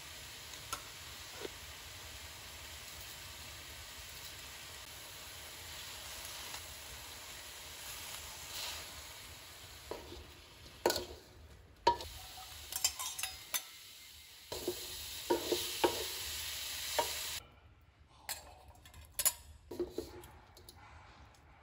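Food sizzling in a metal wok, with a steady frying hiss. From about halfway on, a wooden spatula stirs the food and knocks against the wok again and again.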